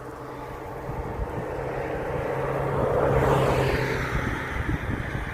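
A vehicle passing by: its noise builds to a peak about three seconds in, then fades away.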